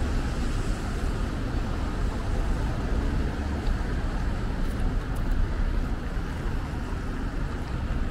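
Steady city road traffic noise with a strong low rumble.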